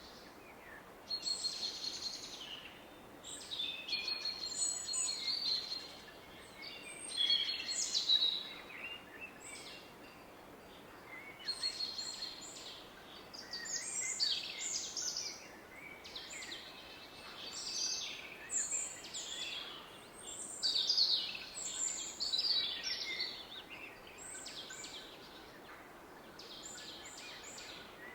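Songbirds singing in woodland, short chirping phrases coming every second or two, over the steady rush of a distant river.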